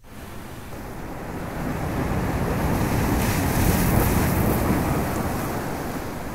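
Geyser crash in a cave ambience: a deep rush of surging water that starts suddenly, swells to its loudest about four seconds in, then slowly dies away.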